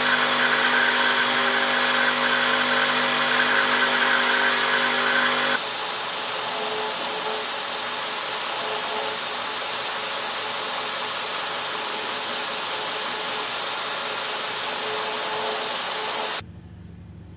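Electric belt grinders running while a small cast metal part is held against the moving abrasive belt. First comes a steady motor hum with a high whine. About five and a half seconds in it cuts to a smaller belt grinder's steadier, hissier belt-on-metal sound, and near the end it cuts to a much quieter low hum.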